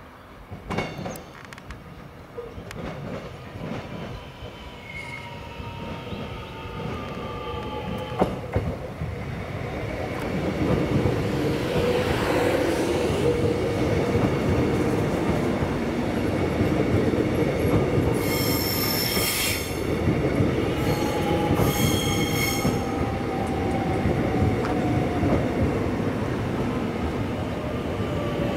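X'Trapolis 100 electric multiple unit arriving and passing slowly, growing louder over the first ten seconds and then running steadily, its wheels squealing on the curved track. Two sharp high squeals come about two-thirds of the way through, and a whine falls in pitch near the end as the train slows.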